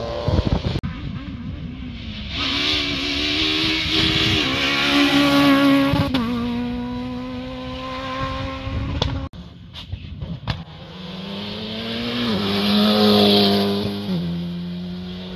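Rally cars passing one after another on a tarmac stage, engines working hard at high revs with the pitch jumping at each gear change. The sound cuts off abruptly from one car to the next, about a second in and again about nine seconds in.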